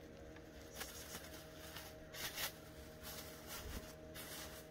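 Faint, intermittent rustling of a plastic bag and soft handling of raw beef pieces, with the clearest rustle a little after two seconds in.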